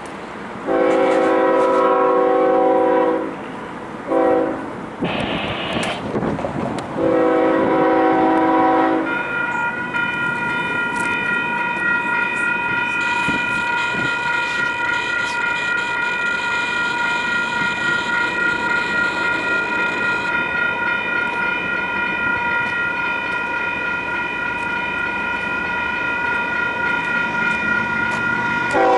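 Air horn of an approaching Union Pacific ES44AC diesel locomotive sounding for a grade crossing: a long blast, a short one, then another long one. From about nine seconds in, a grade-crossing warning bell rings rapidly and steadily as the train nears.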